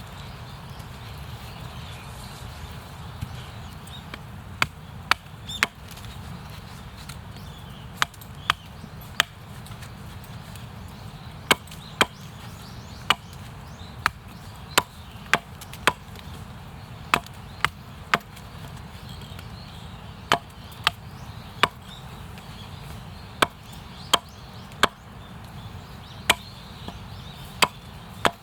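Wood being chopped for the campfire: about two dozen sharp, separate strikes, mostly in quick groups of two or three with short pauses between, starting a few seconds in.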